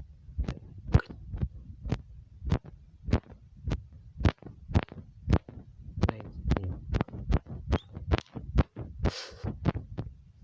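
A run of sharp taps or clicks, about two a second, over a low steady rumble, with a short hiss about nine seconds in.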